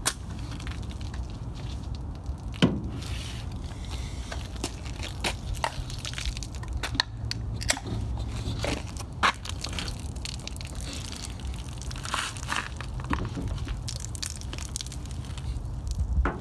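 Aluminium beer cans being handled and crushed, crackling and crunching, with scattered sharp clicks and one sharp knock about two and a half seconds in. A steady low rumble runs underneath.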